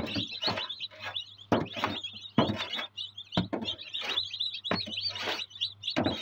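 A group of newly hatched chicks peeping continuously in high, rapid chirps, with several loud knocks and bumps of handling mixed in.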